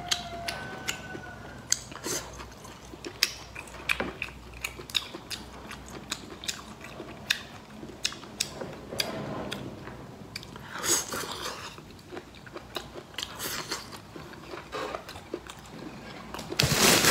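Close-up chewing and crunching of crisp stir-fried octopus tentacles, with many short sharp crunches through the chewing. Just before the end, louder plastic crinkling starts as a bag is picked up.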